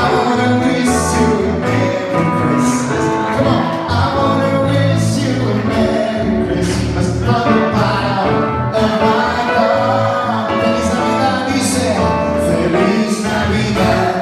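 A man singing into a handheld microphone, amplified through a PA speaker, over a recorded instrumental backing track with a steady bass and percussion.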